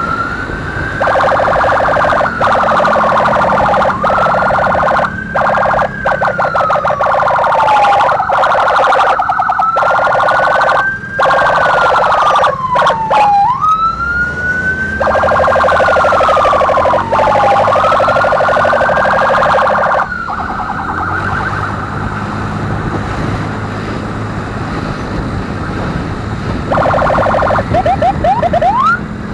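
Emergency escort siren wailing, each slow rise and fall taking about four seconds, with a harsh buzzing horn tone cutting in for stretches of a few seconds. The wail stops about two-thirds of the way through, and a short run of quick rising chirps comes near the end, over the low road noise of the riding motorcycle.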